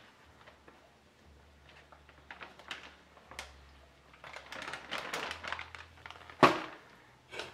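Plastic zip-top bag crinkling and rustling as it is squeezed and shaken out over chicken drumsticks, denser about halfway through, with one sharp, loud crackle about six and a half seconds in.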